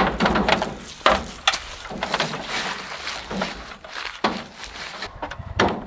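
A Little Giant King Kombo ladder being shifted and set against a wooden barn wall: a series of irregular knocks and clanks, several seconds apart and each ringing briefly.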